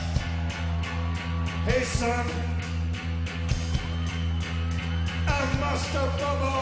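Live rock band playing a loud, droning passage: a held low bass note under steady drum hits. Sliding high pitched lines come in about two seconds in and again near the end.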